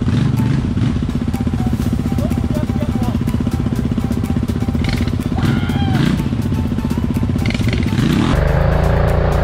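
Quad bike (ATV) engine idling with a steady rhythmic beat, then revving up about eight seconds in, its pitch climbing and holding at a louder, higher note.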